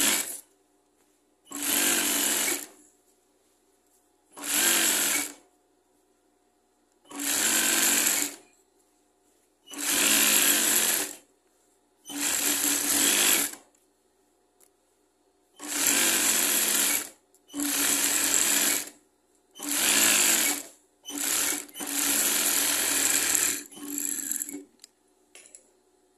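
Sewing machine running in short bursts of about a second each, around eleven times, with brief pauses between as fabric is fed through and a seam is stitched.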